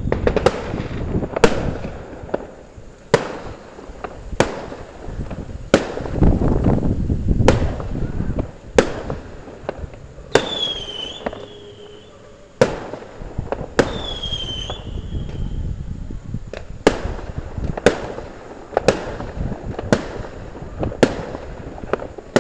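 Aerial fireworks bursting: sharp bangs about every second or so, with rumbling in between. Two short falling whistles come near the middle.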